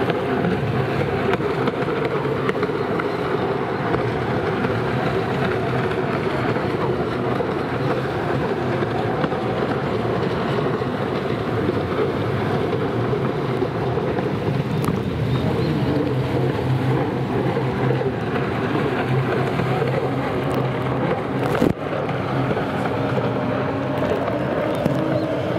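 Racing jet ski engines running at high revs, a steady continuous drone with several engine tones overlapping. A short click with a momentary drop in level comes near the end.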